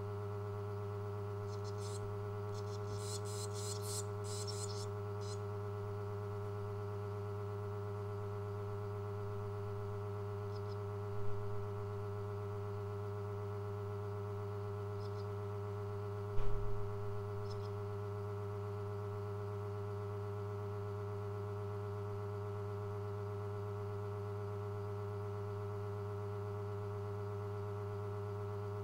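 Steady low electrical hum. A few seconds in there are brief high chirps from barn swallow nestlings, with a few fainter single chirps later. Two short knocks come past the middle, the second louder.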